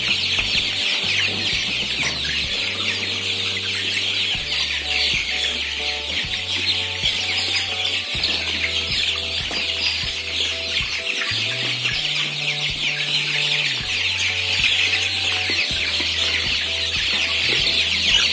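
A flock of young kampung super chicks, about four weeks old, peeping constantly in a dense high-pitched chorus. Low sustained background music notes sit beneath it, changing every second or two.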